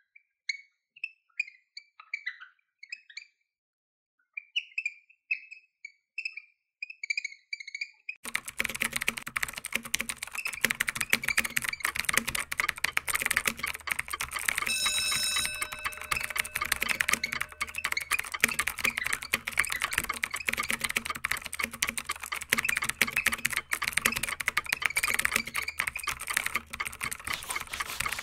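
Felt-tip marker squeaking in short strokes on a whiteboard for the first eight seconds or so, then fast, continuous computer-keyboard typing. About halfway through, a short ringing tone of about a second sounds over the typing.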